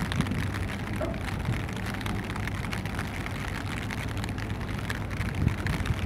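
Steady outdoor rushing noise, with fine crackle through it and a low, even hum underneath.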